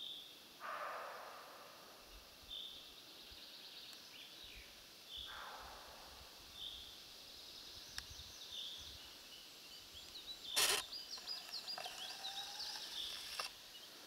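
Small birds calling in woodland: a short high call repeated every second or two, with a busier run of chirping in the last few seconds. Two brief soft rushing sounds come about half a second and five seconds in, and a single sharp click, the loudest sound, about ten and a half seconds in.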